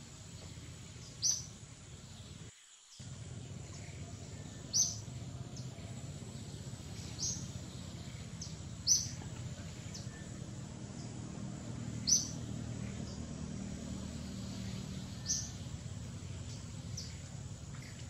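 A bird giving short, high chirps, one every second or two, over a steady low rumble.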